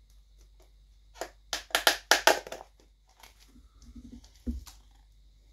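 Plastic deli cup lid being prised off by hand: a quick run of crackling plastic clicks, then a few soft taps and a dull thump as the cup is handled.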